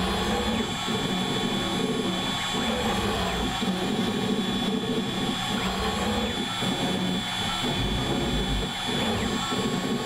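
CNC router spindle running with a steady high whine while a fine single-flute carbide V-bit engraves text into aluminium composite panel. Under the whine, the axis motors whir in a lower tone that keeps changing as the head moves from stroke to stroke.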